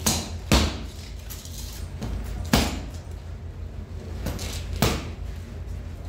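Cavalry trooper's boots stamping on stone paving as he marches, halts and comes to attention: four sharp, echoing heel strikes, the loudest about half a second in and another at about two and a half seconds.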